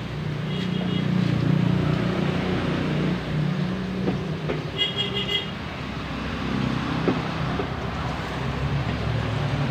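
Motor vehicle traffic running past, a steady low engine rumble that swells and eases, with a brief high beeping horn about five seconds in and a fainter one near the start.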